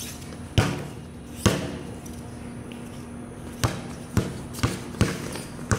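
Basketball dribbled on a concrete court: two bounces about a second apart, then after a pause a quicker run of five bounces, roughly two a second.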